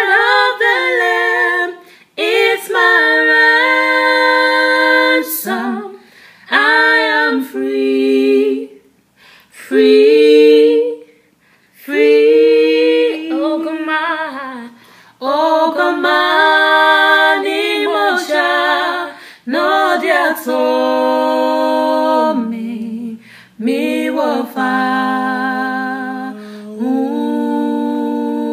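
Two women's voices singing a gospel worship song a cappella, in held, gliding phrases broken by short pauses for breath.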